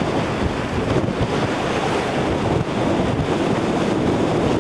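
Wind buffeting the camcorder's microphone: a loud, uneven noise, heaviest in the low end.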